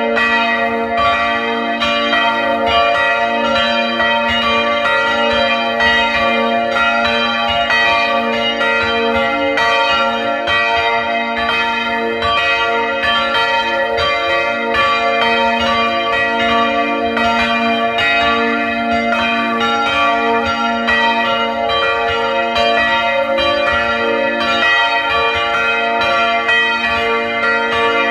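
Full peal of three swinging church bells, heard close up in the belfry: their clappers strike in an overlapping, uneven rhythm, and each strike rings on into the next.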